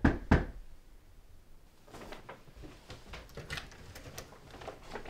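Two sharp knocks or thumps at the start, followed by a scatter of light clicks and taps.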